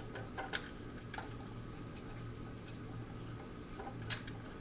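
A few light clicks and taps from a plastic benchtop band saw being handled, over a low steady hum.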